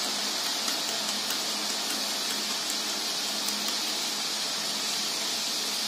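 Hot refined groundnut oil sizzling steadily in a heavy iron kadai as gram-flour batter drips into it from a perforated boondi ladle and fries, with a few faint crackles.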